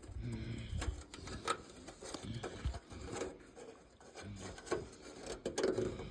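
Scattered light clicks and rustles of hands handling wiring and plastic parts while tracing a turn signal wire to its connector.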